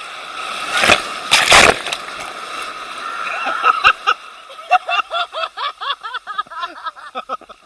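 A big ocean wave breaking over people in the surf: a loud rush of whitewater about a second in, then a quick run of short gurgling, bubbling sounds as the water churns around the microphone.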